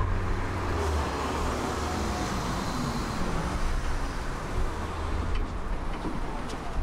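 Articulated electric tram pulling into a stop and slowing to a halt: a low rumble with a faint falling whine as it slows. A few light clicks come near the end.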